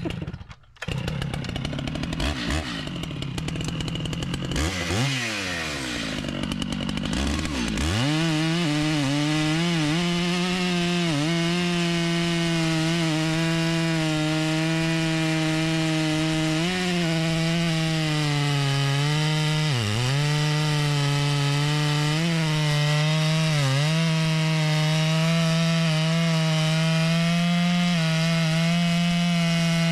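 Large two-stroke chainsaw revving up and down, then held at full throttle through a long cut into a log. Its pitch sags briefly several times as the chain bites under load.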